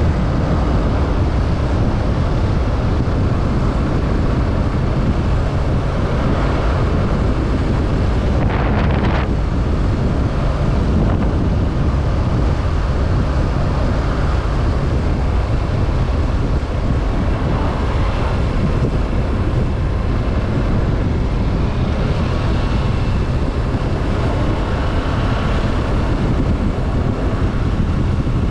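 Kawasaki Z650 motorcycle's parallel-twin engine running steadily on the move, with wind noise buffeting the microphone.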